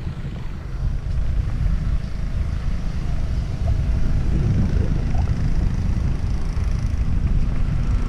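Wind buffeting a camera microphone, mixed with a heavy rumble from riding fast over a rough dirt trail.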